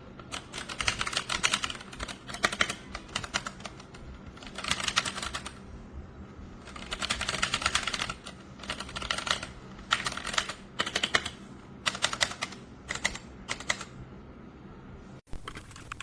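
Typing on a Redragon K617 60% mechanical keyboard: rapid keystroke clicks in bursts of one to two seconds with short pauses between, over a faint steady hum.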